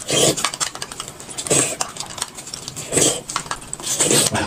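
Close-up eating sounds: a spoon clinking on a cup, sipping and chewing, in about four short bursts.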